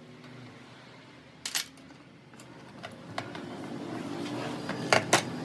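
Sharp clicks or knocks: a pair about a second and a half in and a louder pair near the end, over a low steady hum that grows louder from about three seconds in.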